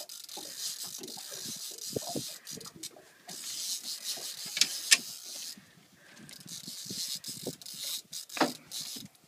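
Fishing reel buzzing in three spells with a fast ratcheting sound, as a hooked sturgeon pulls on the heavy rod, with two sharp clicks about halfway through.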